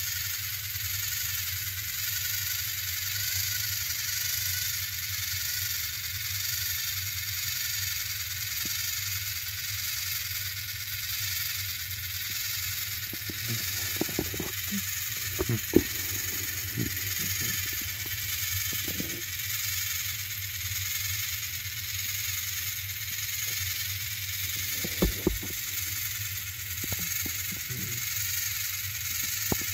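Battery-powered Thomas & Friends toy train motors whirring steadily as the coupled engines strain against each other on plastic track. A few sharp knocks come around the middle and again later.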